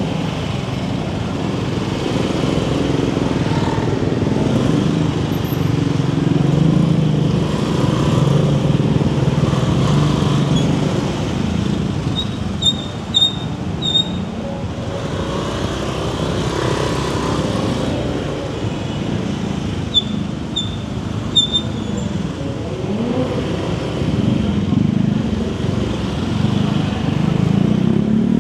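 A scooter engine running along with the surrounding road traffic, a steady rumble. There are two runs of short high beeps, about four in a row near the middle and three more some seconds later.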